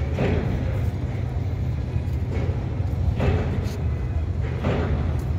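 A heavy diesel engine running with a steady low drone. It is cut by three short, louder bursts of noise, near the start, about three seconds in and about four and a half seconds in.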